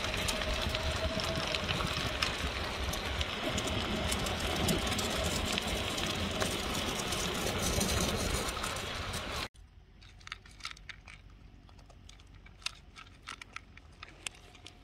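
Steady rush of a moving recumbent trike: tyre rolling noise and wind on the microphone. It cuts off suddenly about nine and a half seconds in, leaving a quiet stretch with quick small clicks as a Chihuahua eats or drinks from a plastic bowl.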